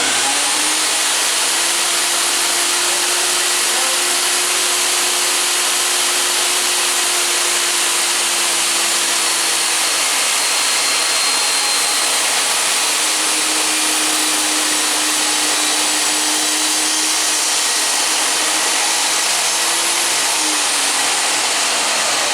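Table saw running at full speed: a loud, steady whir of the motor and spinning blade.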